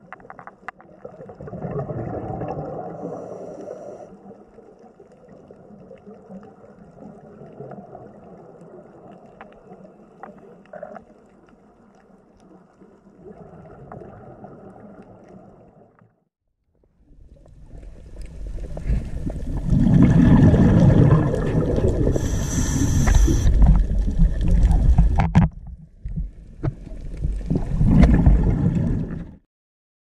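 Underwater water noise with a low gurgle for about the first 16 seconds. After a short near-silence, a much louder rough, rumbling noise takes over and cuts off abruptly just before the end.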